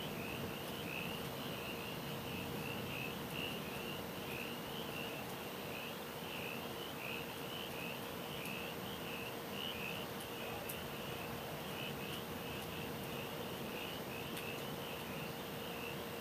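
Night chorus: a steady, high-pitched pulsing trill from calling animals, about two pulses a second, over a soft background hiss.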